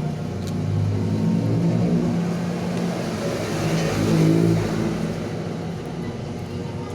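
A motor vehicle engine running, its pitch shifting, loudest about four seconds in.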